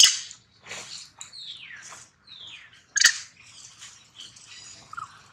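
Young long-tailed macaques calling: two sharp, loud shrill screeches about three seconds apart, with thin high squeaks falling in pitch between them.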